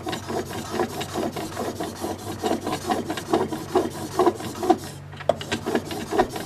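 Steel blade being rubbed back and forth on an oilstone, grinding in a slurry of kerosene and lube oil, in repeated scraping strokes of about two to three a second, with a brief pause about five seconds in.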